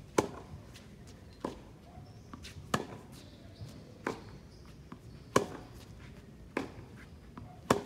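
Tennis rally: racket strings striking the ball about every 1.3 seconds, seven hits in all, the near player's hits loud and the far player's returns softer, with fainter ticks of the ball bouncing between.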